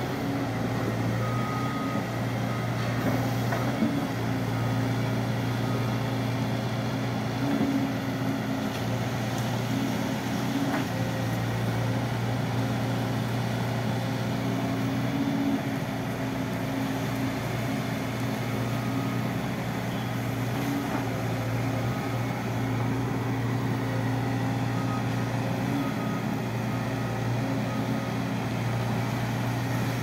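Volvo EC210 crawler excavator's diesel engine running steadily under load as the machine works its boom and bucket, digging into a dirt hillside, with a few faint knocks.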